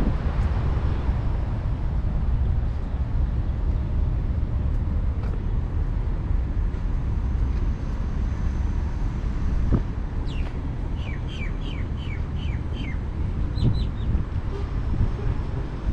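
Steady low rumble of wind on the microphone mixed with city traffic. About two-thirds of the way through, a bird calls a quick run of short falling chirps, followed by a few more.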